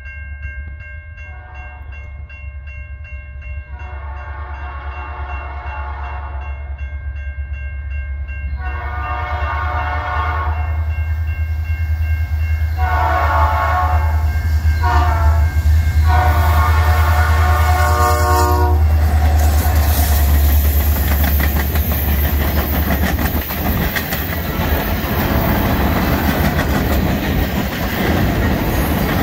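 Approaching EMD GP40R diesel locomotive blowing a series of horn blasts for a grade crossing over the rising rumble of its engine, the last blast ending about 19 s in. The locomotive then passes close by and its freight cars roll past with steady wheel and rail clatter.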